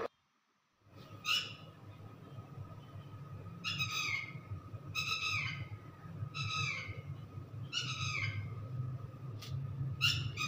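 A bird calling repeatedly, short falling calls every second or two, over a steady faint high tone and a low hum.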